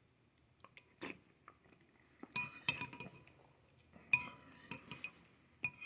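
A spoon clinking against a soup bowl while soup is being eaten: soft taps early, then about four ringing clinks from a little past two seconds in.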